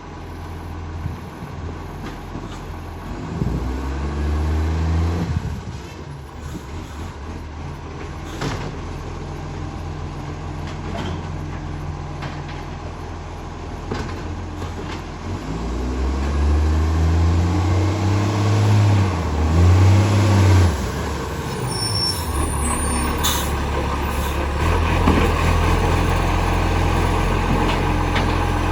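Recycling garbage truck's engine running and revving up and down twice, a few seconds in and again about halfway through, with a few short sharp hisses of its air brakes. The truck has an exhaust leak.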